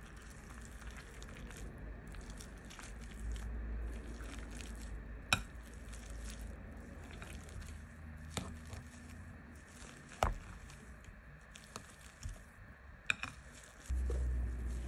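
Metal potato masher squishing boiled potatoes in a glass bowl, with a few sharp clicks as the masher knocks against the bowl.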